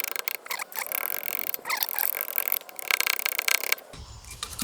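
Hand carving tools cutting and scraping green oak: a rapid, hissy run of scraping strokes that stops abruptly about four seconds in.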